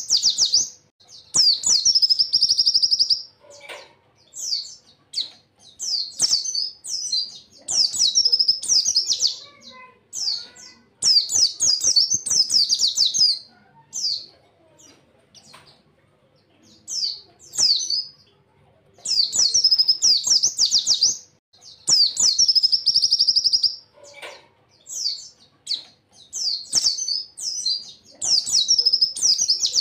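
White-eye (pleci) songbird singing rapid, high-pitched trilling phrases a second or two long, repeated with short pauses. There is a quieter gap of a few seconds near the middle.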